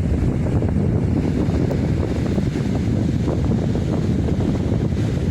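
Wind buffeting the microphone in a steady low rumble, with beach surf beneath it.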